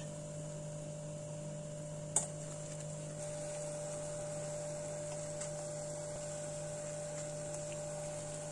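Lokma dough balls frying in a pot of hot oil: a faint, steady sizzle over a low, steady hum, growing a little louder about three seconds in as more dough goes in. A single sharp click about two seconds in and another near the end.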